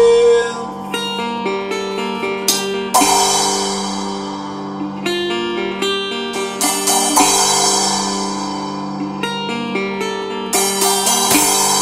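Instrumental break: a resonator guitar picks a melody over a steady low held note, with drums and a cymbal crashing every few seconds.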